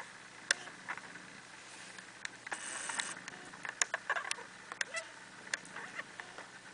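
Two-week-old kittens nursing: scattered small sharp clicks and smacks, with a short rustle about two and a half seconds in.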